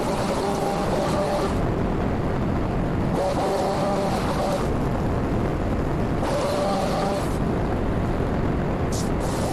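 Small gas engine of a handheld trimming tool, revving in repeated bursts of about a second or so and dropping back between them, over a steady rumbling noise.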